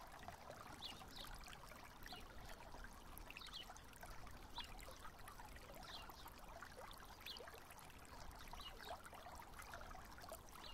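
Faint trickling of a slow-flowing river, with small scattered gurgles.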